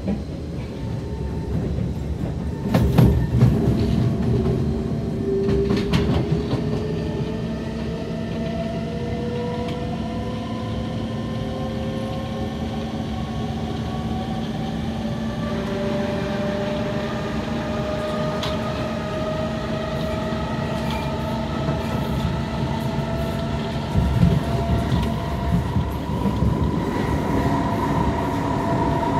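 Inside a Kawasaki C151 metro train: the traction motors whine with several tones slowly rising in pitch as the train accelerates, over a continuous rumble of wheels on rail. A few sharp knocks come through in the first several seconds and again later on.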